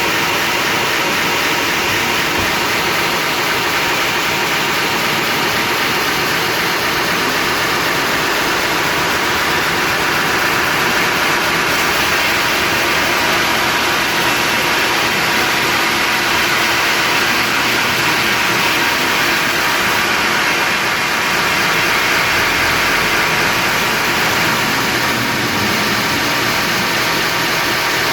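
Sawmill machinery running steadily, a loud, even mechanical drone with a steady hum in it.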